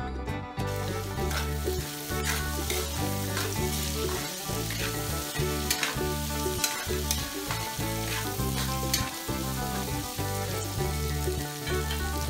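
Diced potatoes and chicken liver sizzling in oil in a metal wok, stirred with a metal spatula that scrapes and clinks against the pan several times. Background music with a steady bass line plays underneath.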